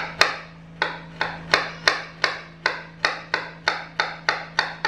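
Kitchen knife finely chopping peeled garlic cloves, each stroke a sharp knock on the board, in a steady rhythm of about three a second.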